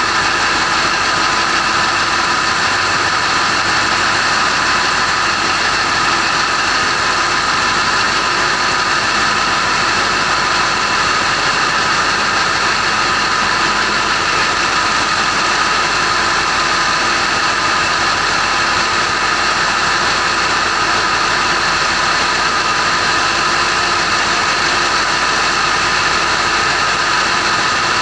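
Marine diesel engines running steadily in a ship's engine room: a loud, unchanging machinery din with a constant high hum over it.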